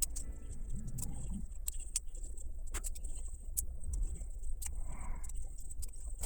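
Repaired vintage Goldair flip alarm clock running: a steady low hum with scattered light clicks from its mechanism at irregular times.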